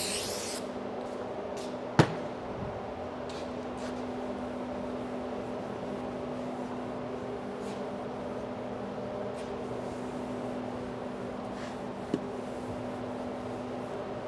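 A hand spray bottle of detailing cleaner hisses onto a microfibre cloth and stops about half a second in. After that comes a steady low hum, with one sharp click about two seconds in and a fainter click near the end.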